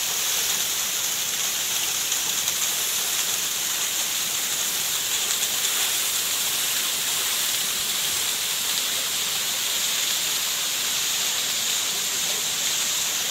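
Ice-covered waterfall, with water still falling through it: a steady, high-pitched hiss that does not change.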